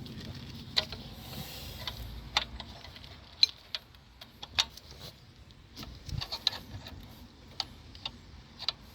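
Scattered light clicks and taps at irregular intervals, like small parts or hand tools being handled, over a faint low hum.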